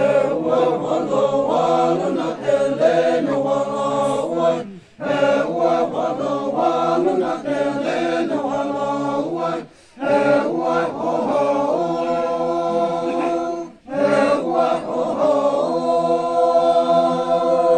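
A group of men chanting a traditional song together in four phrases, with short pauses between them; the last phrase has long held notes.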